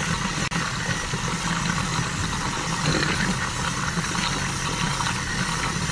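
Electric random-orbital polisher with a foam pad running steadily, buffing polishing compound into the painted clear coat of a motorcycle fairing panel: a continuous motor drone.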